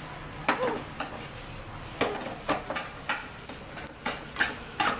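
Fried rice being stirred and tossed in a metal pan: a utensil scraping and clinking against the pan at irregular intervals, roughly every half second, over a faint sizzle.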